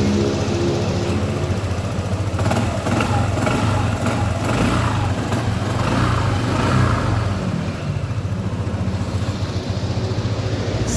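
Honda ADV 150 scooter's single-cylinder engine running steadily at idle, having just started on the electric starter while hot.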